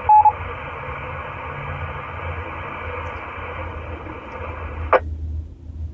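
FM mobile transceiver speaker on the 224.780 MHz repeater: a short beep, the repeater's courtesy tone, at the start, then a steady radio hiss while the repeater carrier hangs, ending with a squelch click about five seconds in. A low steady rumble runs underneath.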